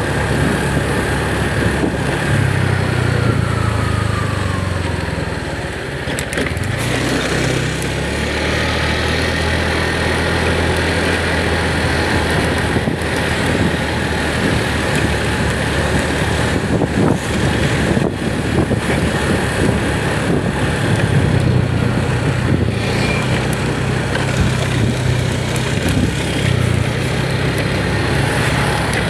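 Motorcycle engine running on the move, easing off briefly about six seconds in and then picking up again.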